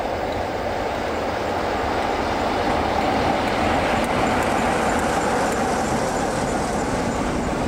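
British Rail Class 47 diesel locomotive passing close by with a train of vans: a steady rumble of engine and wheels on the rails, growing a little louder midway as the locomotive draws level.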